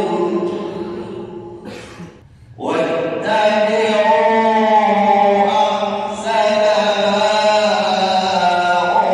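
Male reciter chanting the Quran in a melodic recitation with long drawn-out notes. The voice fades out about two seconds in for a brief breath, then starts again.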